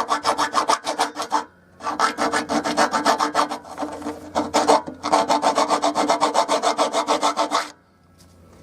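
A hand file rasping metal off the height-adjustment slot on the side plate of a cylinder mower, in quick back-and-forth strokes, several a second. The filing comes in three runs, with a short pause about one and a half seconds in, and stops near the end.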